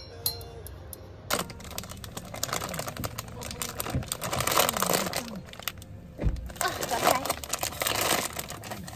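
Irregular crinkling and clicking handling sounds, with a few sharper knocks, under low voices.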